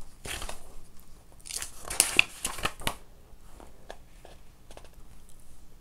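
Paper pages of a book being leafed through and turned, with papery rustling for about three seconds, loudest about two seconds in, then a few faint soft rustles and ticks as the page settles.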